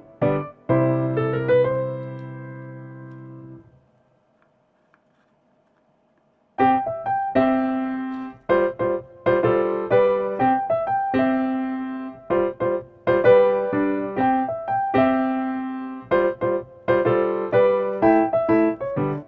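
Background piano music, a light tune of separate notes. A held chord fades out about three seconds in, there are a few seconds of near silence, then the tune starts again.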